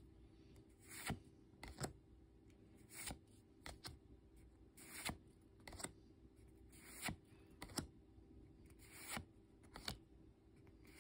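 Faint swishes of Pokémon trading cards sliding against each other as they are moved one at a time through a handheld stack, one or two swishes roughly every two seconds.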